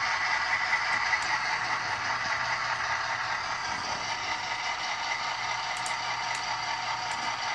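Steady diesel-engine idle sound from HO scale DCC sound decoders, played through the model locomotives' small speakers, so it is thin and hiss-like with faint steady tones and little bass.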